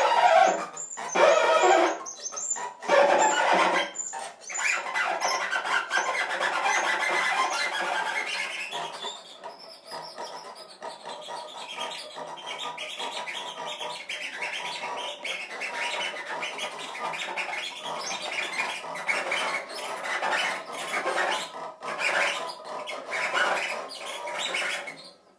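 Cello bowed with extended technique in free improvisation: scratchy, squeaking bow noise, in choppy strokes for the first few seconds, then a denser steady scraping texture that stops abruptly at the end.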